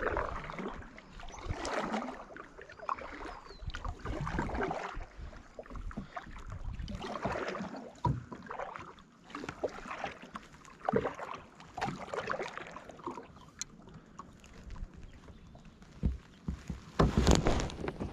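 Kayak paddle strokes swishing and splashing through lake water, one every second or two, with a louder burst near the end.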